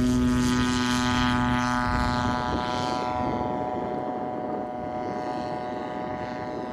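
1/3-scale RC model airplane's RCGF Stinger 40cc twin-cylinder gasoline engine and propeller at steady high power through the takeoff and climb-out. The pitch holds level while the sound fades as the plane draws away.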